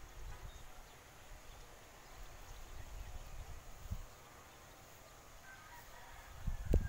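Outdoor rural ambience: an uneven low rumble of wind on the microphone, with a few faint bird chirps near the end and a louder burst of rumble and knocks at the very end.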